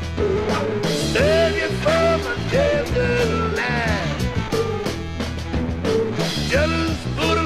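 Instrumental break of a psychedelic electric blues band: an electric lead guitar plays short bent notes over a repeating bass line and drums.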